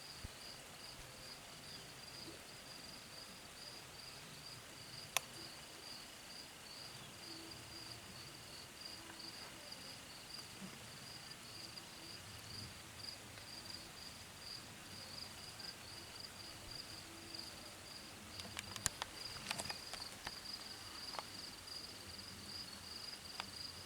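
Crickets chirping in a steady, fast pulsing trill. A single sharp crack about five seconds in, and a few short clicks near the end.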